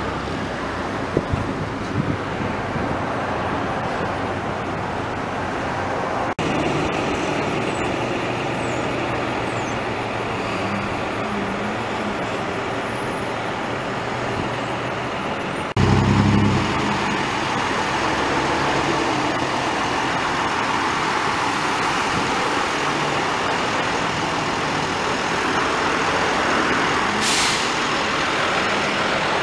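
Road traffic: vehicle engines running and passing, with a heavier low engine rumble about halfway through and a short hiss near the end.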